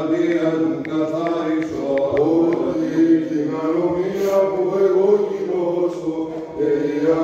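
Greek Orthodox church chant: voices singing a slow, melismatic melody over a steady held low drone (ison).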